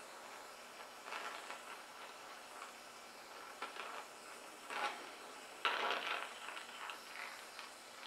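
Faint steady hiss of a gas torch heating the corner of a sheet-steel guard clamped in a vise, with a few short clinks and scrapes of metal being handled, the loudest about two thirds of the way in.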